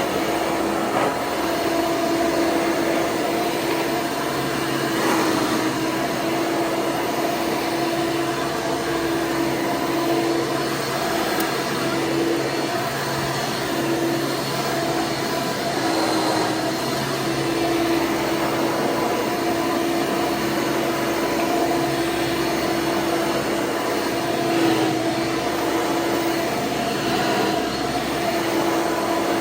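1995 Hoover Encore Supreme hard-bag upright vacuum running steadily, a smooth, even motor whine on one constant pitch. Its twenty-blade replacement fan is spinning cleanly, with no rattle from the broken seven-blade fan it replaced.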